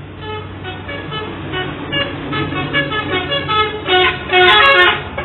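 Bus 'telolet' horn, a multi-tone musical air horn, playing a rapid run of short notes at changing pitches that grows louder and is loudest near the end.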